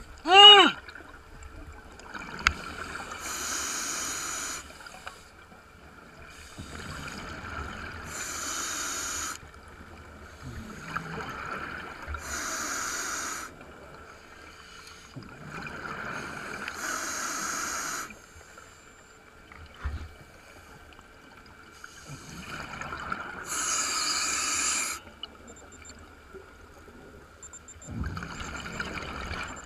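Scuba diver breathing through an open-circuit regulator: a hiss as each breath is drawn, then a gush of exhaust bubbles as it is let out, about one breath every four to five seconds. Right at the start comes a short loud hummed tone, rising then falling in pitch.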